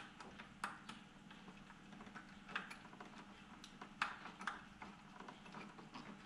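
Faint, scattered small metallic clicks and taps as screws are fitted and started by hand into a fuel pressure regulator's cover, over a low steady hum.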